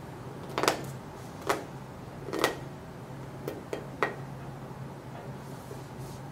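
A spiky rubber squishy ball being squeezed and handled: about six short squishy crackles and taps in the first four seconds, over a low steady hum.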